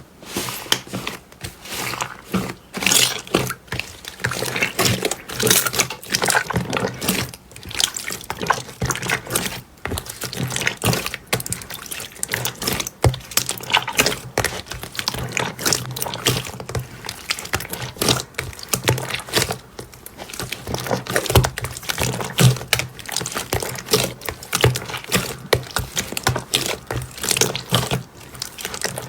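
Slime being squeezed and poked by hand: a dense, irregular run of sticky clicks and pops.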